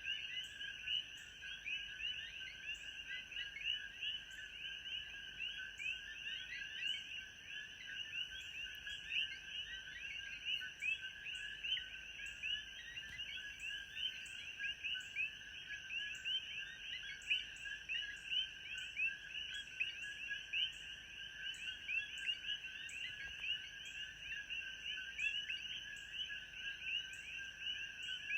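A dense chorus of many frogs calling at once, short overlapping calls running together without a break. Behind it is a steady, high-pitched insect drone with a regular ticking pulse.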